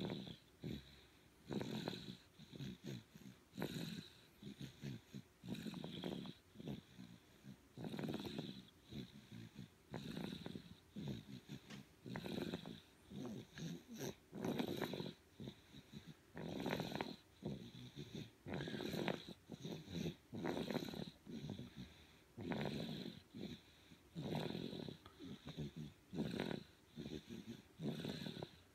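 A baby snoring: snoring breaths come about every two seconds, with quiet gaps between them.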